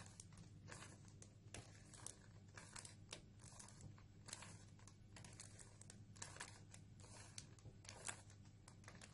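Faint plastic clicking and rattling of a 3x3x3 Rubik's cube's layers being turned in quick, irregular twists, several a second, as the final moves of the solve are made.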